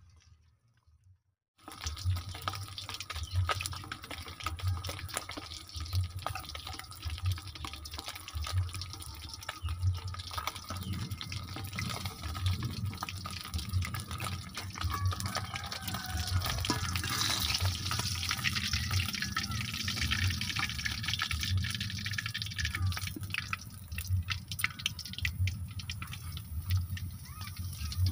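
Whole fish deep-frying in hot oil in a wok: continuous sizzling with many small crackling pops. It starts suddenly about a second and a half in.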